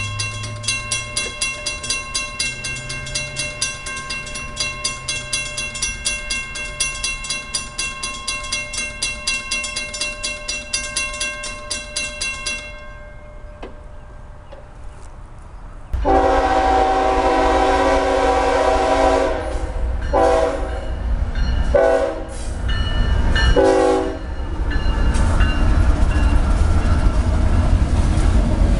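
Railroad crossing bell ringing in a fast, even rhythm, stopping about 13 seconds in. Then a freight locomotive's horn sounds several blasts, one long followed by shorter ones, and the locomotives and loaded hopper cars rumble past over the crossing.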